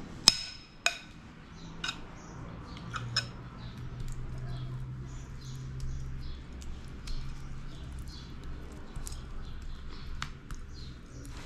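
Metal spoon clinking sharply twice against the bowl of tomato sauce, then a few lighter taps and faint soft scraping as the spoon spreads sauce over pizza dough in the pan.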